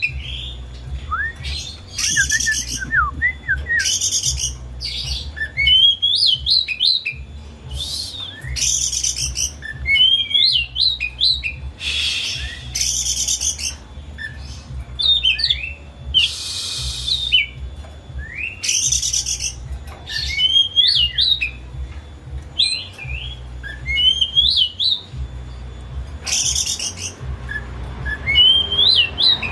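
Oriental magpie-robin (kacer) in full, continuous song: rising and falling whistled phrases mixed with harsh raspy bursts, recurring about every two seconds.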